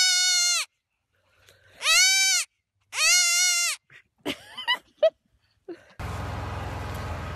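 Baby goat bleating loudly, three long drawn-out calls about a second apart, then a few short, weaker squeaks. Near the end a steady background hum and hiss sets in.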